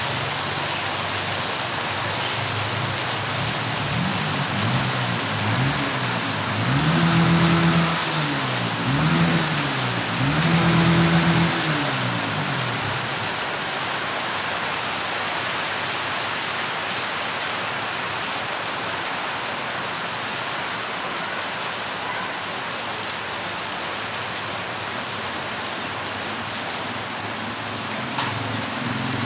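Rain pouring onto floodwater over a road, a steady hiss. In the first half a motor vehicle's engine revs up and down several times, loudest about seven to eleven seconds in, then fades out about thirteen seconds in.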